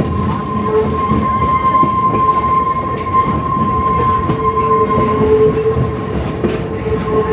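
Passenger train running along the track, heard from aboard: a steady rumble with a sustained high whine held over it.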